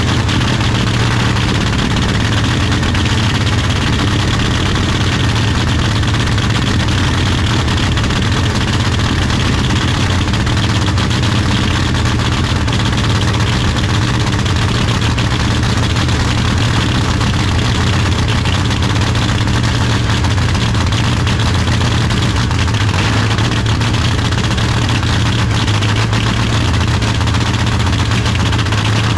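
Nitro drag-racing Camaro's engine idling steadily through its open exhaust headers on its first start-up.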